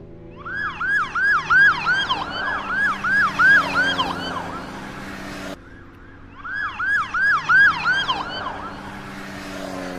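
Police car siren on a fast yelp, rising and falling about three times a second, in two stretches broken by a sudden cut about halfway through, over a steady low vehicle hum.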